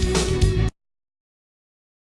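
Background music that cuts off abruptly under a second in, leaving dead silence.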